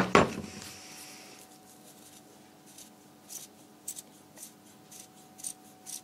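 A short hiss of brake cleaner from a hand-pump sprayer at the start, then a cloth rag rubbing a rubber fork wiper seal in short scratchy strokes, about two a second, wiping off its waxy mould-release coating.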